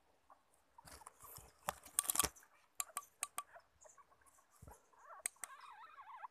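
A hand scraping and knocking inside a hollow tree trunk, sharp clicks bunched about two seconds in and single clicks after. Near the end a high wavering squeaky cry, from the baby Asian palm civets inside the hollow.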